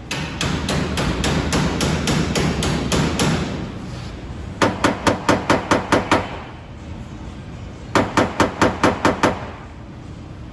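Rapid, even hammer blows on metal. Strikes are mixed with a steady noise for the first few seconds, then come in two quick runs of about ten and eight blows, roughly six a second.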